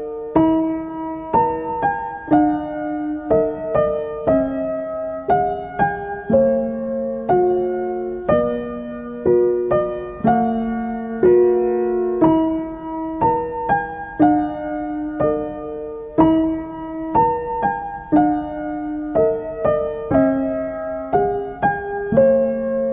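Background piano music: a gentle melody of single notes played at a steady, unhurried pace.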